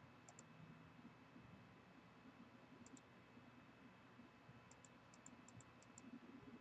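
Near silence with faint computer mouse clicks: a pair about a quarter second in, another pair near three seconds, and several clicks in quick succession between about five and six seconds.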